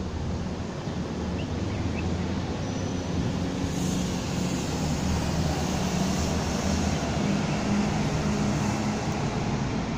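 Steady city background noise heard from high up: a low droning hum under a broad hiss, swelling a little from about four seconds in.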